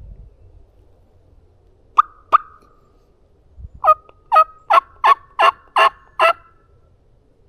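Turkey yelps: two sharp notes, then after a short pause a run of seven quick yelps, a little over two a second.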